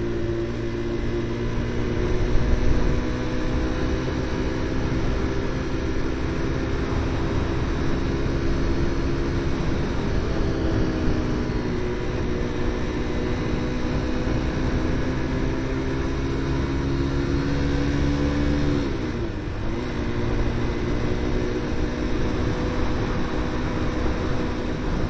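QJ Motor SRV 125 motorcycle engine and exhaust running at a steady engine speed, a fairly high-pitched, quiet note. About three quarters of the way through, the pitch dips briefly, then settles back to a steady note.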